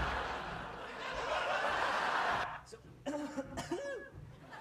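A crowd laughing, many voices at once, fading out about two and a half seconds in. Near the end come a few short pitched voice sounds.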